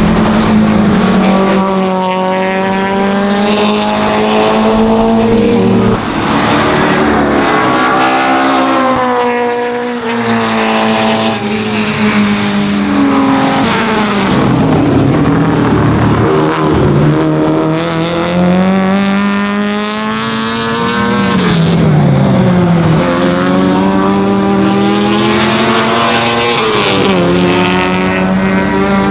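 BMW 2002 race car's naturally aspirated four-cylinder engine running hard, its note held at high revs and then dropping and climbing again several times as it shifts and brakes.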